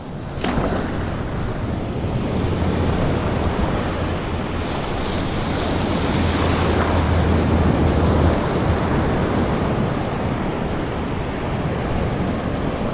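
Ocean surf washing in shallow water, with wind rumbling across the microphone.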